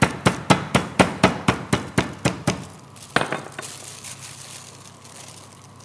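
Chicken breast being pounded thin under a plastic sheet on a wooden cutting board, about four quick strikes a second. The strikes stop about two and a half seconds in, one more follows, and then the plastic rustles as the flattened escalope is lifted.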